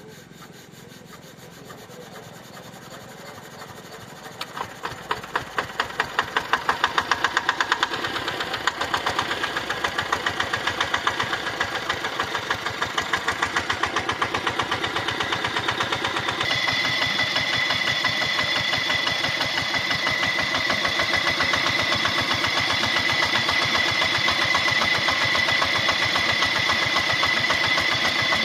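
Diesel engine driving an irrigation water pump, chugging at an even beat that grows louder over the first several seconds, then settling into a steady run. About halfway through a steady high whine joins it.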